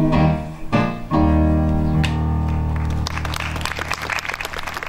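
Piano-led band plays the closing chords of a song, ending on a long held chord; about three seconds in, applause breaks out.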